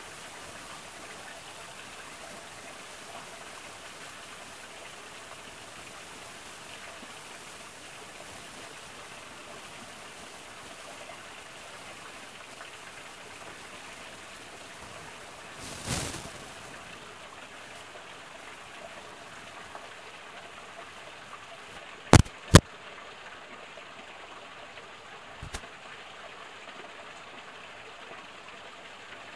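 Steady hiss of a small stream's trickling water. About halfway through comes a brief rush of noise, and a few seconds later two sharp, loud clicks less than half a second apart, then a fainter click.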